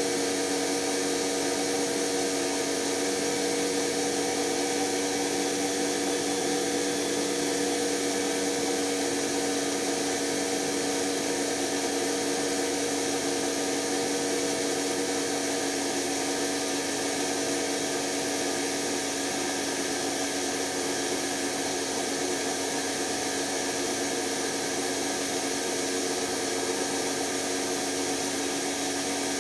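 Electra ELEC1647A3 washing machine's brushed motor running steadily at high speed: a constant whine with two steady tones over a hiss. The motor's commutator is damaged and it is dying.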